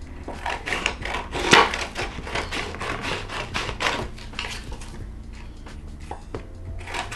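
Scissors snipping through a thin clear plastic sheet, the plastic crinkling as it is handled. The snips and crackles come thick for the first few seconds and thin out after about five seconds.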